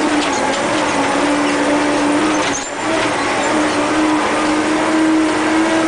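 Earthmoving scraper's diesel engine running flat out at full throttle, a steady drone heard from inside the cab, with a brief dip in level about two and a half seconds in.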